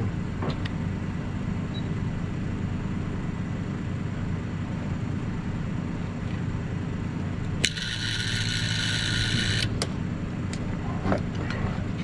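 Steady low electrical hum. About three-quarters of the way in, a hissing sound in the upper range starts and stops abruptly after about two seconds, with a click at each end.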